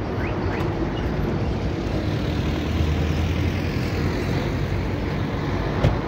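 Roadside traffic noise: vehicles passing on a busy road with a steady rumble and a deeper engine hum swelling in the middle. A single sharp click comes near the end.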